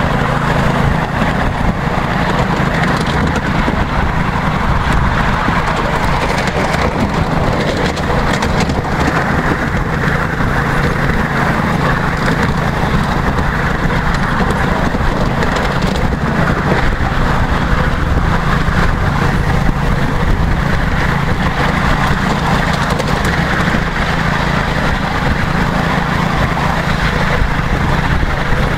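Miniature railway train running along its track, heard from aboard a passenger car: a steady low rumble and drone from the train in motion, without a break.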